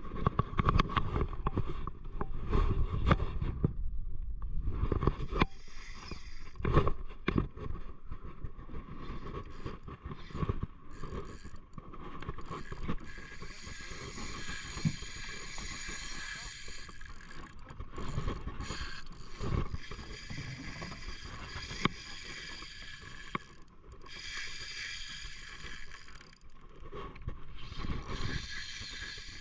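Spinning fishing reel being cranked while the rod is jigged, its gears whirring, with knocks and scrapes as the rod and reel are handled.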